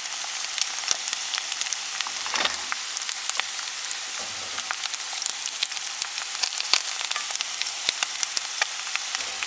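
Hot oil sizzling in a frying pan under an egg on a bed of grated potatoes: a steady hiss with many small pops and crackles as the egg white and potatoes fry crisp.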